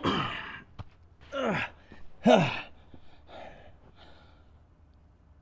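A man's wordless vocal sounds: three short exclamations, each falling in pitch like a sigh, the third the loudest, then quiet.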